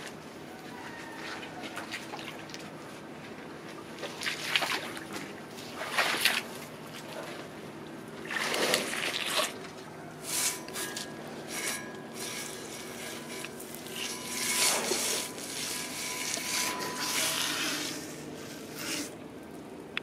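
Common hippopotamuses moving in wet mud right at the camera: irregular wet squelching and sloshing, in bouts of about a second.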